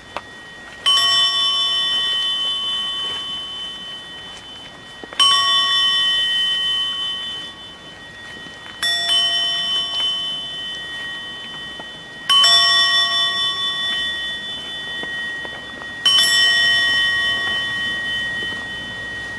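A metal bell struck five times, about every three and a half to four seconds, each stroke ringing out with several steady tones and slowly fading. It is a bell tolled in a funeral procession.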